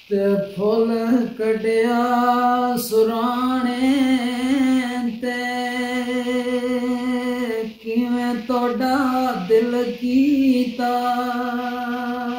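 A man singing a Gojri mahiya folk song unaccompanied in a high, strained voice: wavering, ornamented phrases give way to long steady held notes, with two short breaths between phrases.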